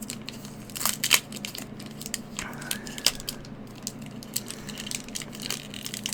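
Pokémon trading cards and a foil booster pack being handled: crinkling and rustling, with a few sharp taps and clicks, the loudest about a second in.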